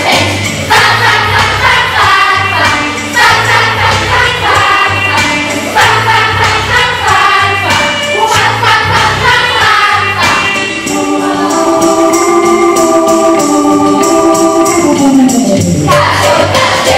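A group of children singing a song together over instrumental accompaniment with a steady beat. About eleven seconds in the music holds long notes for a few seconds, then slides down in pitch before the song picks up again.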